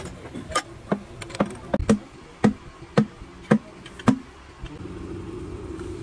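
Hammer blows, eight sharp strikes at about two a second, then stopping; a steady hum comes in near the end.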